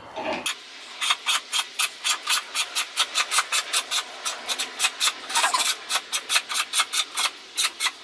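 Scissor jack being cranked to lift a car, its screw and crank handle giving rhythmic clicks at about five a second as the car rises.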